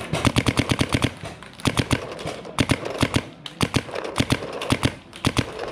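Paintball marker firing in rapid strings of shots, about ten pops a second, with short breaks between the strings.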